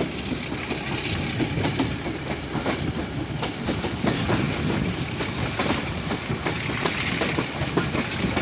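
Passenger train running along the track, its wheels clattering over the rail joints with a steady running noise, heard from an open carriage window.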